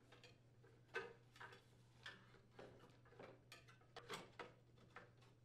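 Faint, irregular clicks and light knocks of a plastic muffler cover being handled and seated onto a snowblower engine.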